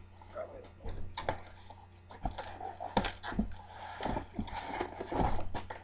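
Cardboard box and plastic packaging being handled as an RC truck is pulled out: irregular rustling and scraping with several sharp knocks, loudest near the end.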